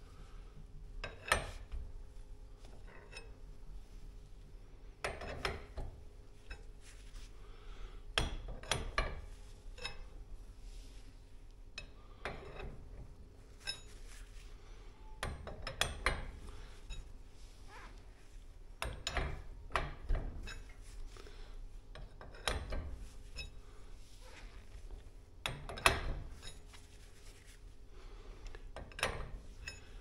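Steel winding bars clinking and scraping in the winding cone of a garage door torsion spring as the tensioned spring is unwound by hand. Short metallic clinks come in small clusters every few seconds.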